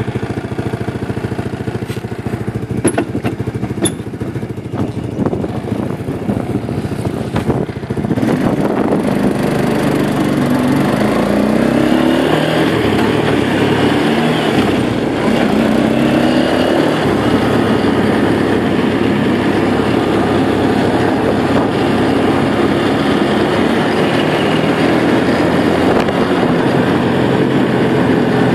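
2000 Arctic Cat 300 4x4 ATV's single-cylinder four-stroke engine, just started, idling with a few clicks. About eight seconds in it gets louder as the quad pulls away, rising in pitch as it accelerates, then runs steadily while riding.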